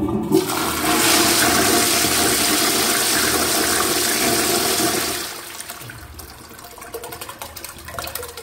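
Wall-hung Royal Doulton toilet pan flushing from a high-level concealed cistern. The flush is powerful and very loud: it starts abruptly with a rush of water for about five seconds, then dies down to quieter running water in the bowl.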